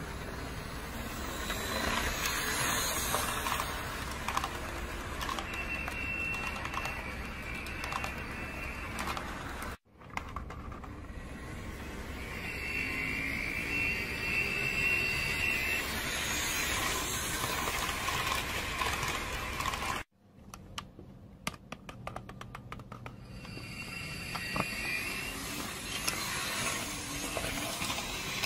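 Model train running on its track: the locomotive's small electric motor and gears whirring and the wheels rolling over the rail joints, with a high steady whine that comes and goes several times. The sound cuts out briefly twice.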